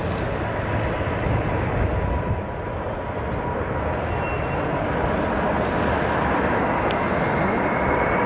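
Boeing 747 jet engines on final approach: a steady rumble with a thin whine on top that rises slightly in pitch near the end, over gusty wind buffeting.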